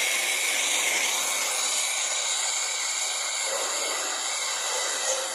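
Gas blowtorch burning with a steady, loud hiss that starts suddenly, lit to heat a seized pulley on an electric motor shaft so the metal expands and lets go.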